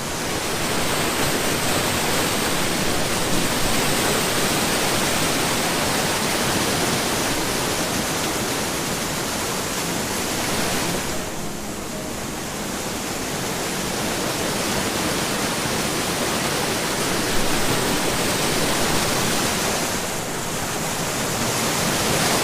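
Loud, steady rush of a creek pouring through the sawmill ruins, a dense roar of falling and churning water that eases briefly twice.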